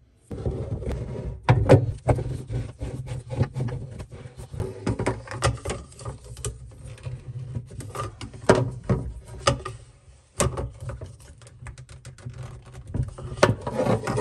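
Hard plastic handling sounds as a carbon filter cartridge is seated in its plastic housing and the housing is screwed on and tightened with a plastic filter-housing wrench: an irregular string of clicks, knocks and scrapes, with a short pause about ten seconds in.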